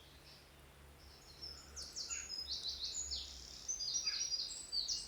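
Wild songbird singing in woodland: quick runs of short, high notes that each slur downward, starting about a second and a half in.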